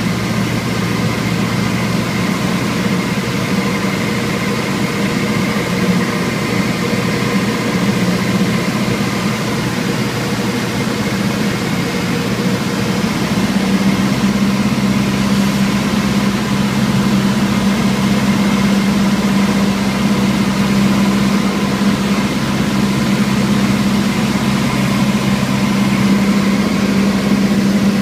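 Cessna light aircraft's piston engine and propeller heard from inside the cabin, a steady drone through the approach. The note brightens and gets a little louder about halfway through.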